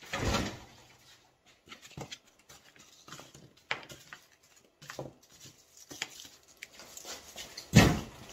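Styrofoam packing being pulled and cut away from lithium battery cells with snips: scattered scrapes and clicks of foam and tools on a workbench, with a burst right at the start and one loud knock near the end.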